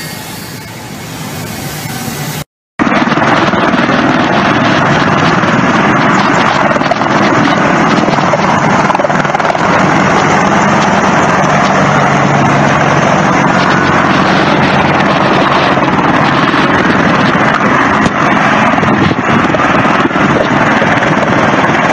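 For the first two and a half seconds, a large jet transport plane's engines whine steadily. Then, after an abrupt cut, a low-flying military helicopter's rotor and engines run loud and steady for the rest.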